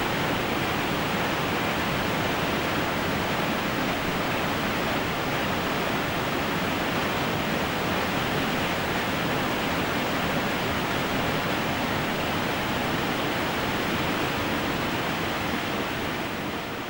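Steady rushing roar of Nevada Fall, the Merced River's waterfall, heard from a distance, beginning to fade out near the end.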